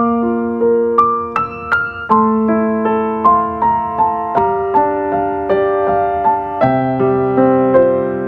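Background music: a slow, gentle piano melody, single notes struck about twice a second over held lower notes.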